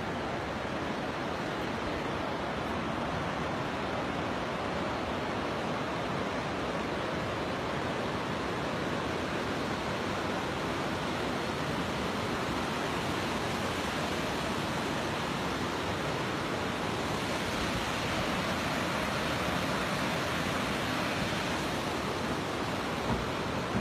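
Steady rushing noise of muddy floodwater pouring across the site, a continuous even wash of water.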